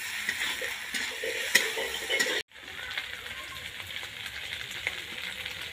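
Goat boti curry frying in a metal wok over a wood fire: a sizzling hiss with the scrape and clatter of a metal spatula stirring it. About two and a half seconds in, the sound drops out for an instant and a steadier hiss carries on, with fewer scrapes.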